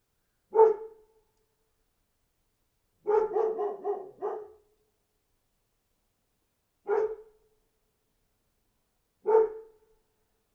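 A dog barking: one bark, then a quick run of about five barks, then two more single barks a few seconds apart, with silence between them.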